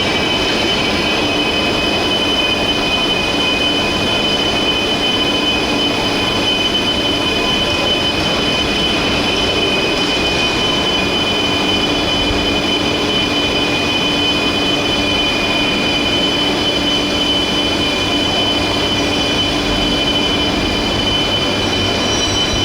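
Steady industrial machinery noise with several high, steady whining tones over it, unchanging throughout.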